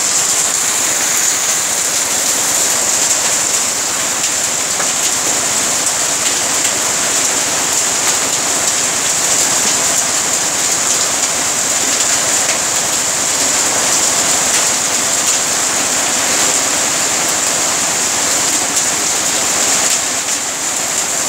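Heavy rain pouring steadily, splashing into standing water on a flooded lane.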